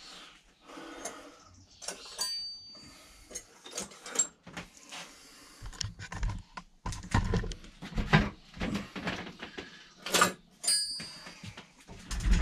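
Metal hand tools clinking and rattling as they are picked through and handled, with two brief metallic rings.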